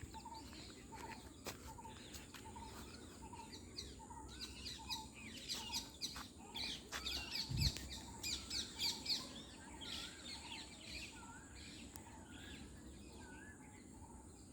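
Wild birds calling: one bird repeats a short low note at an even pace, about every half second, while others chirp rapidly and high, busiest in the middle. A brief low thump about seven and a half seconds in.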